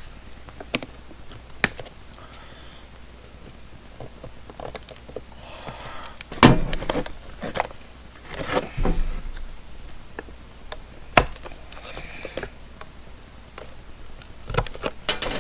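Handling noise from opening a tool package: scattered clicks, knocks and soft rustling as the tabs on the back of the drywall saws' packaging are cut and the saws are handled. The loudest knocks come about six and a half and eight and a half seconds in.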